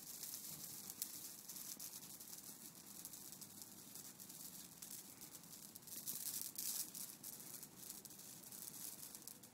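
Heather shrub burning in tall flames: a faint steady hiss with scattered crackles, a cluster of louder crackles about six to seven seconds in.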